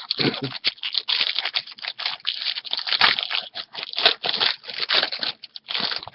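Wrapper of a Topps jumbo baseball card pack being torn open and crinkled in the hands, a dense run of crackling rustles throughout.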